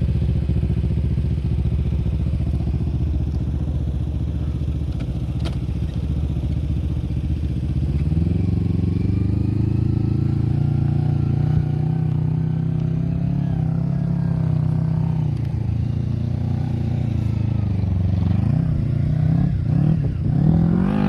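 Go-kart's small engine idling, then revved up about eight seconds in and held at a higher speed for several seconds before easing back, with a few quick throttle blips near the end.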